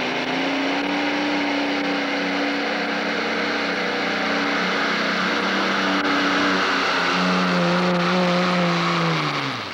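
Multi-engine modified pulling tractor running flat out under load as it pulls the sled. The engine note holds steady, then falls sharply near the end as the engines wind down.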